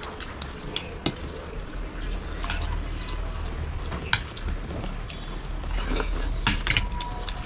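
Eating sounds: wet chewing and mouth noises as momos and chowmein are eaten, with forks and spoons clicking against ceramic plates many times, over a steady low hum.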